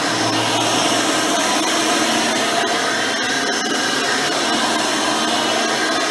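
Hoover Elite 600 upright vacuum, fitted with a modern 7-amp motor and 20-blade fan, running steadily while vacuuming: a constant rush of air with a steady motor whine, and a few faint ticks near the middle.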